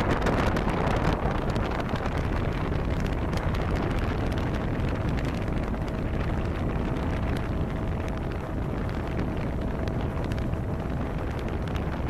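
Wind buffeting the microphone over the steady drone of a motorboat running at speed across open water. A faint steady whine comes in about four seconds in and fades near the end.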